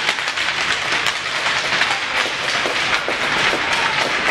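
Spectators in the stands clapping: a dense patter of many claps over a steady crowd noise.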